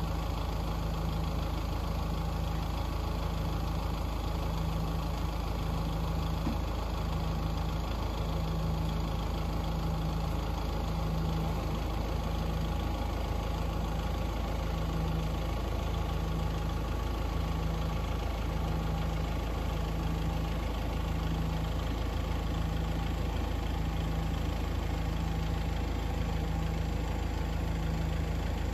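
Tractor engine idling steadily, with a slow, even throb in its hum.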